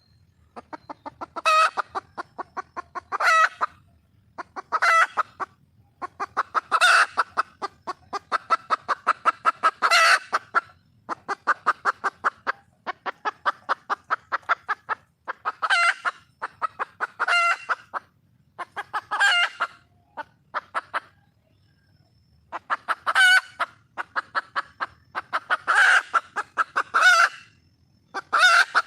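Red junglefowl hen calling for a mate: long runs of rapid clucks broken every couple of seconds by louder, drawn-out cackling notes, with a brief pause about two-thirds of the way through.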